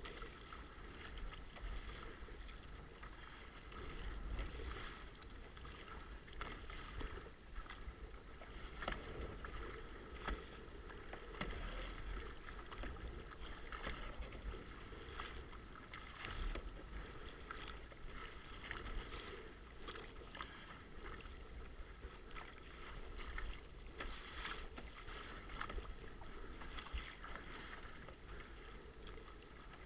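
Kayak paddle strokes: the blades dip and pull through the water with irregular splashes and drips every second or two, over a low wash of water around the plastic sit-on-top kayak.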